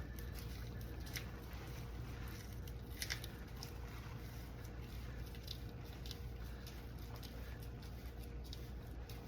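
Faint scattered clicks and crackles of hands handling the plastic stake and film, a few sharper ones about a second and three seconds in, over a steady low hum.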